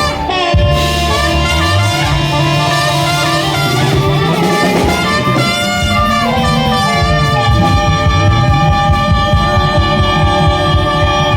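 Band music with horns, drums and guitar playing an instrumental passage after the vocal line of a swing-blues song, settling into long held notes in the second half.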